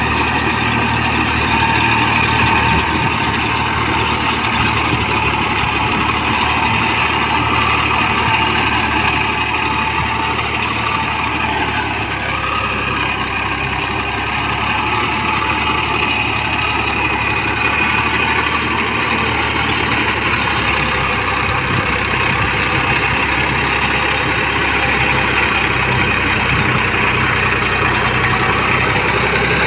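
Massey Ferguson 241 tractor's three-cylinder diesel engine running steadily under load as the tractor pulls a puddler through flooded paddy mud. The level dips slightly about twelve seconds in.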